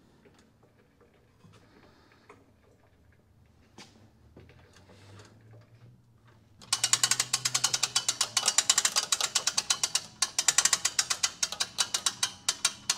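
Hand-crank winch of a Genie material lift being cranked under load, its ratchet pawl clicking. A few faint clicks at first, then from about seven seconds in a rapid, even run of sharp clicks, several a second.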